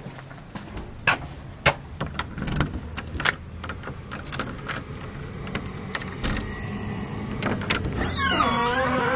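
A key worked into a front-door deadbolt: a run of sharp clicks and small metal knocks. Near the end the doorknob turns and the door opens with a drawn-out creak that slides in pitch.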